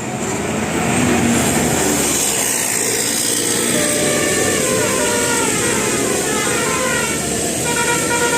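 Bus with a roof-mounted basuri multi-tone horn playing a quick melody of short stepping notes over the engine and road noise. The notes come in about three seconds in and keep going.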